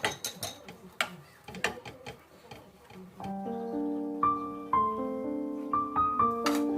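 A few sharp, irregular clicks and taps, then background piano music that starts about three seconds in: a simple melody of single held notes over low chords.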